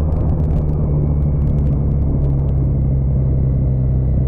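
Motorcycle engine running steadily while being ridden at a cruise, its note sinking slightly in pitch, under a rush of wind noise.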